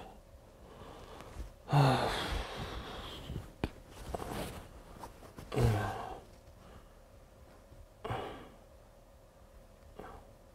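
A man groaning and sighing wordlessly, three long falling sighs about every three seconds and a weaker one near the end, the sounds of someone feeling ill in bed. A couple of faint clicks come between the sighs.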